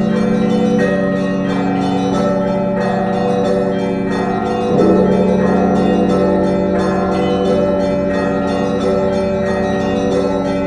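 Russian Orthodox church bells ringing a festive peal, heard close up in the belfry. Many bells of different pitches are struck in a quick repeating pattern, with a strong low stroke about five seconds in.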